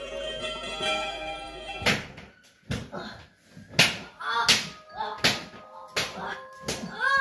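Plucked-string music plays briefly, then cuts out about two seconds in. It gives way to a dozen or so sharp, irregular slaps or blows, with short voice sounds breaking in among them.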